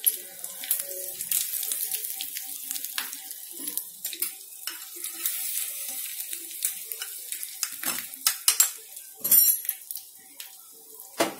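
Hot oil tempering of mustard seeds, dried chillies and curry leaves sizzling and crackling in a small metal tadka pan, with the pan and spoon clinking and scraping against the stove and each other. A burst of loud clatter comes about nine seconds in.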